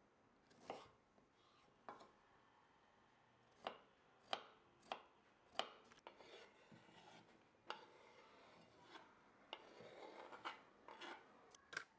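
Kitchen knife cutting a potato on a wooden cutting board, about six sharp knocks in the first six seconds as the blade meets the board. Later, diced potato is scraped off the board into a bowl, a soft rustle with a quick cluster of light knocks near the end.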